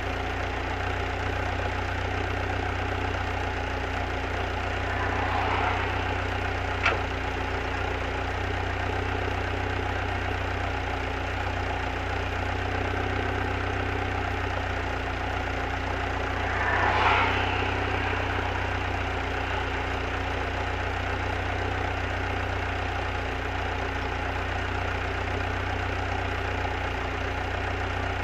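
Lotus Elise S2 engine idling steadily. Two brief swells of noise rise over the idle, about five seconds in and, louder, about seventeen seconds in, with a single sharp click in between.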